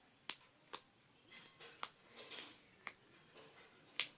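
Very sticky green slime clicking and popping as it is stretched and pressed in the hands: about seven sharp, irregular pops, the loudest near the end.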